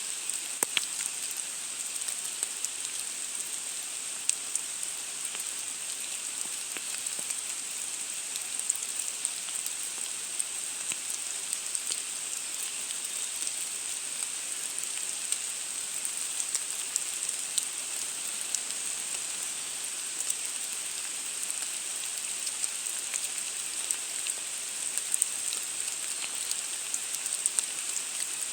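Steady rain falling, an even hiss with many small scattered drop ticks.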